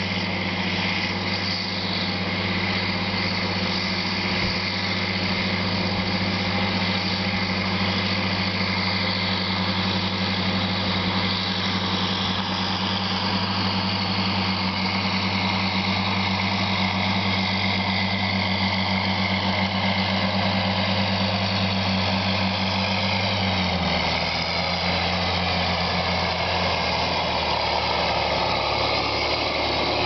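John Deere 7810 tractor's six-cylinder diesel engine running steadily under load while pulling a six-furrow reversible plough through stubble, coming closer. A little after two-thirds of the way through, its pitch drops as it passes close by.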